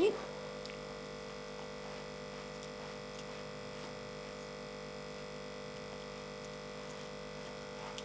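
Steady electrical mains hum with a few faint ticks. A talking voice ends just at the start.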